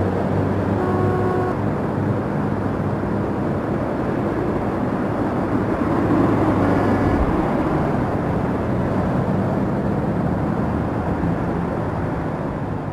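Steady city traffic noise from cars on a busy multi-lane street, with a couple of brief higher tones standing out.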